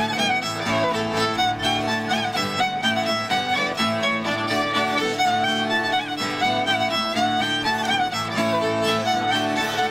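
Fiddle playing an old-time folk dance tune over a steady instrumental accompaniment.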